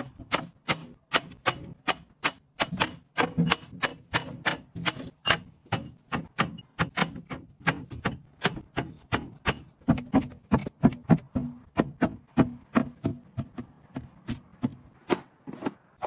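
Drinks bottles, glass and plastic, set down one after another on glass refrigerator shelves: a quick run of knocks and clinks, about three or four a second.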